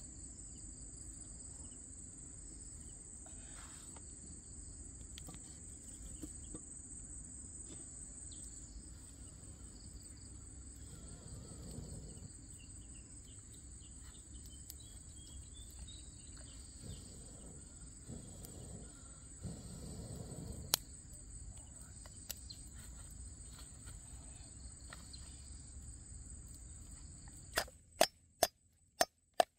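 Insects droning steadily in a high, thin tone over outdoor ambience. Near the end, a knife chops lemongrass stalks on a wooden board: about five sharp knocks, roughly half a second apart.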